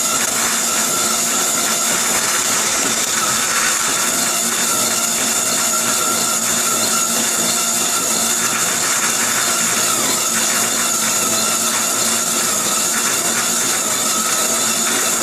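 Table saw blade cutting into a segmented wooden bowl blank that a drill turns against it in a jig: a steady whine with continuous wood-cutting noise, unchanging throughout.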